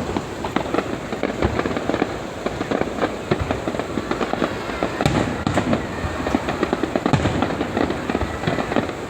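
Fireworks going off in quick succession: a dense, continuous crackle of small bangs, with a few stronger blasts about halfway through.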